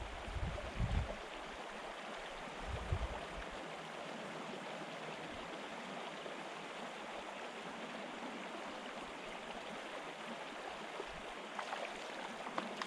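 River water running over a stony riffle in a small moorland stream, a steady rushing. A few low thuds come in the first three seconds, and a few faint clicks near the end.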